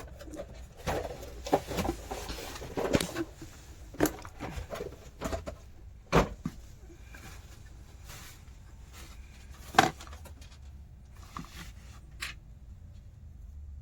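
Scattered clicks, taps and rustling from hands working wires and small tools on an amplifier board, with two louder knocks about six and ten seconds in. A faint steady low hum runs underneath.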